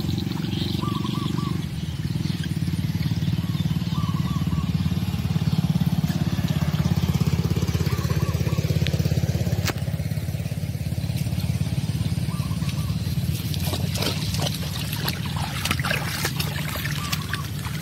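A small engine running steadily nearby, a low drone that grows a little louder in the middle and then eases off. In the last few seconds, short splashing and rustling sounds come from the dog wading through shallow water among the weeds.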